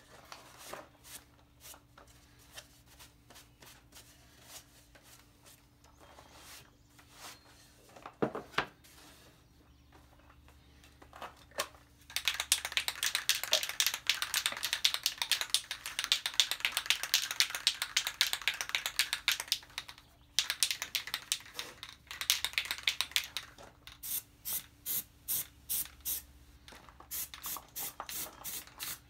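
Sanding by hand in fast back-and-forth strokes, with a long loud stretch in the middle. After it come separate strokes about two a second, quickening near the end.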